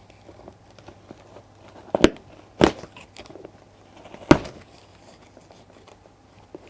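Packaging being handled and worked open by hand: three sharp knocks about two, two and a half and four seconds in, amid faint crinkling and crackling.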